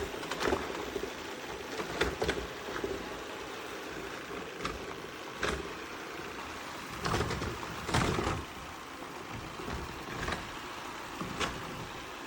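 Shark PowerDetect robot vacuum running with a steady hum, with several short knocks and clatters as it works.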